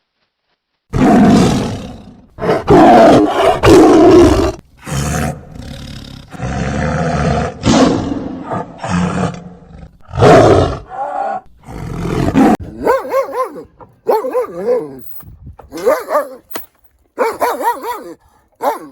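Animal vocalising: a series of loud, harsh, roar-like growling calls, then, about two-thirds of the way in, a run of shorter, wavering pitched calls.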